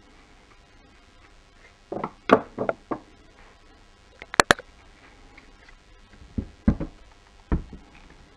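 Hard plastic and chrome-trimmed steering-wheel parts knocking and clicking against a wooden tabletop as they are handled: a cluster of knocks about two seconds in, two sharp clicks near the middle, and a few more knocks toward the end.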